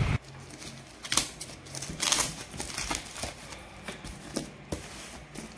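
Scissors cutting through a padded plastic mailer wrapped in clear tape, with the plastic crinkling and crackling as it is cut and pulled open; an irregular run of clicks with a few louder snips.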